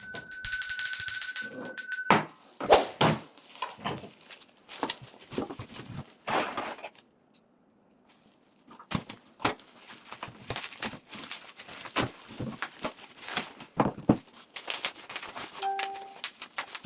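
A steady high electronic tone lasting about two seconds, then a run of irregular knocks, taps and rustles of objects being handled, with a short pause near the middle.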